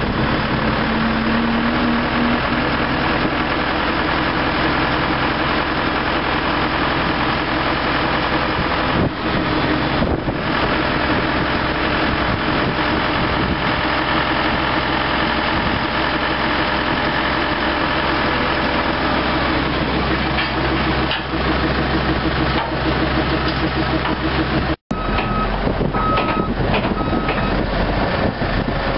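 Diesel engines of heavy earthmoving equipment running steadily. Near the end a few short high alarm beeps sound.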